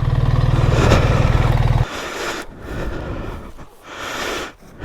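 BMW R 1300 GS Adventure's boxer-twin engine running steadily, then cutting off abruptly about two seconds in, leaving quieter scraping and scuffing sounds.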